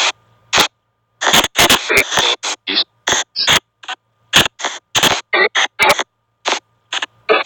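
Spirit box app on an Android phone, sweeping through short chopped bursts of hissing static and garbled voice fragments, a few a second with silent gaps between.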